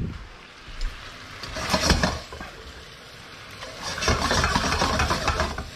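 Wooden spoon stirring saucy spaghetti and grated cheese in a wok: wet noodles squelching and scraping against the pan, with a few knocks at first and steadier, louder stirring from about two-thirds of the way in.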